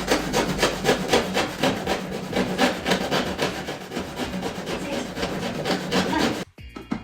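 Hand saw cutting through a laminate floor board, fast back-and-forth strokes about four a second, stopping abruptly near the end.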